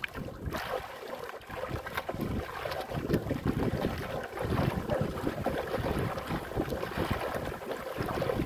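Wind buffeting the microphone over a choppy sea, with waves splashing against the hull of a small wooden outrigger boat.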